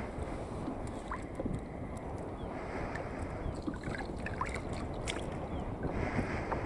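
Steady low rumble of wind and water heard from a boat on the river, with a few faint short chirps.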